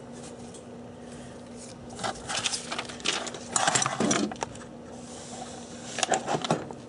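Paper templates being handled and laid out on a work surface: bursts of rustling and light clicks and taps, in two spells, with a faint steady hum beneath.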